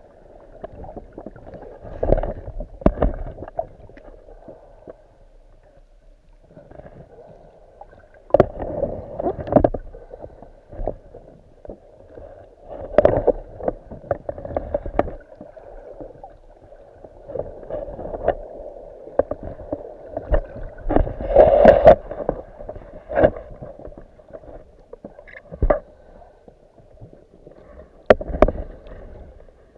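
Muffled underwater water noise picked up through a camera's waterproof housing: a steady low wash with irregular surges of sloshing and gurgling every few seconds, and a few sharp knocks.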